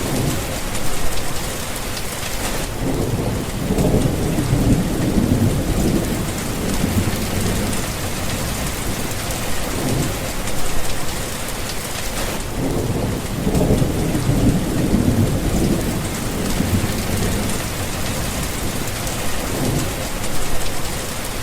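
Thunderstorm: steady heavy rain with rolling thunder. Long low rumbles swell about three seconds in and again around thirteen seconds, with shorter rumbles in between.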